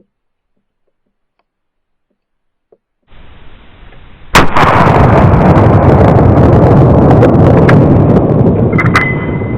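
A single deer-rifle shot about four seconds in, very loud, followed by several seconds of heavy rumbling that slowly fades.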